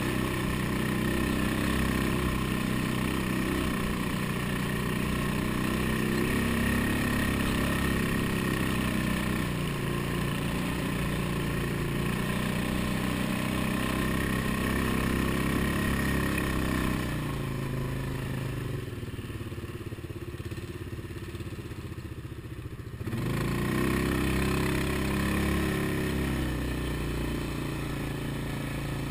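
ATV engine running under varying throttle as the quad rides a rough, rocky dirt trail, its note rising and falling. About two-thirds of the way through it eases off and goes quieter for several seconds, then picks up again.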